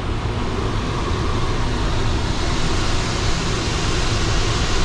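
Steady cabin noise of a small private jet in flight, heard from the cockpit: a constant rush of engine and airflow over a low rumble, with a faint steady hum.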